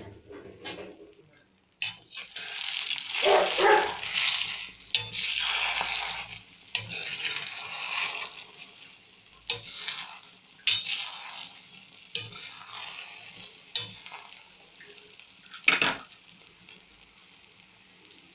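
Eggs and onions sizzling in hot oil in a frying pan while a wooden spatula stirs and scrapes them, with a sharp knock of the spatula against the pan every second or two. The sizzle is loudest in the first half and grows fainter toward the end.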